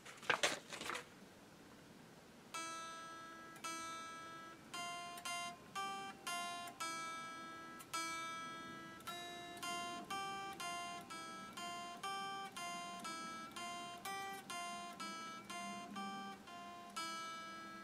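Fender Squier Stratocaster electric guitar playing slow, separate single notes on the high E string, picked at an even beginner's pace, about two a second, stepping among a few neighbouring pitches. A couple of light knocks come in the first second, and the notes start about two and a half seconds in.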